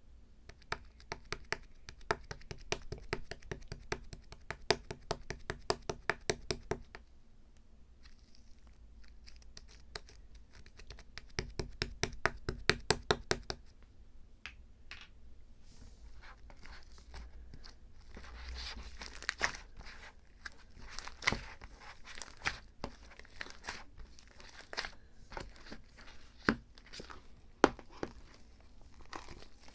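Material being torn and crinkled by hand. There are two stretches of fast, even crackling, each several seconds long, then irregular crinkling and rustling with scattered sharp clicks.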